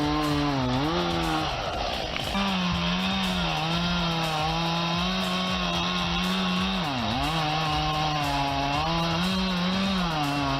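Chainsaw engine running at high revs while cutting wood. Its pitch sags under load and picks up again several times, with a brief break about two seconds in.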